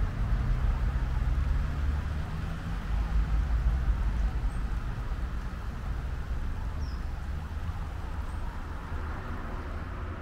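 Steady low outdoor rumble, like distant road traffic, with a few faint bird chirps about midway and near the end.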